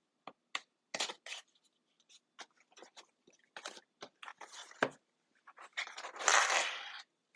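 Cardboard shipping box being opened with a knife: short scrapes and crackles of blade, tape and cardboard, then a longer, louder scraping tear about six seconds in as the box is pulled open.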